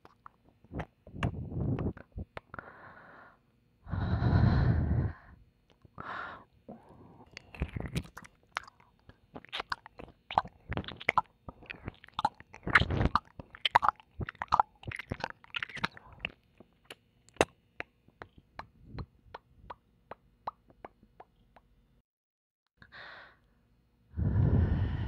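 Close-miked ASMR mouth sounds: wet licking, kissing and tongue clicks in quick irregular runs, with a few longer breathy blasts onto the microphone. A brief silent pause comes shortly before the end, followed by another breathy blast.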